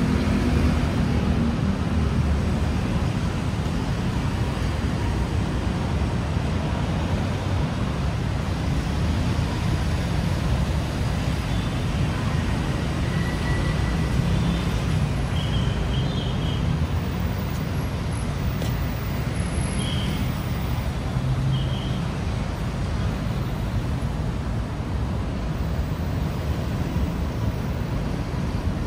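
Steady rumble of city road traffic, with a few faint short high chirps about halfway through.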